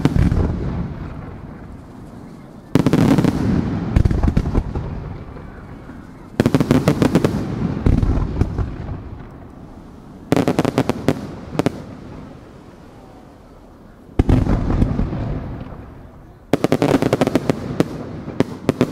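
Aerial firework shells bursting in a steady series, a new volley about every four seconds, five in all. Each volley opens with a heavy boom and a rapid run of sharp cracks, then dies away over a few seconds before the next.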